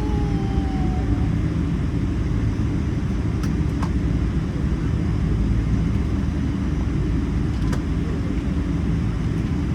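Steady low rumble of a Boeing 777-300's cabin noise, engines and air, with a few faint clicks about three and a half, four and eight seconds in.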